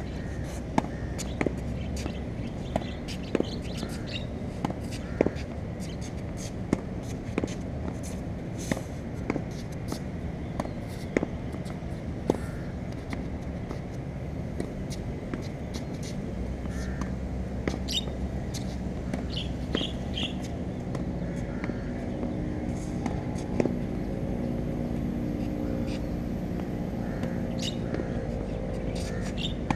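A tennis ball being hit against a practice wall: sharp pops of racket strikes, the ball hitting the wall and bouncing on the court, every second or so. A few bird chirps come in partway through, and a low droning hum comes up in the second half.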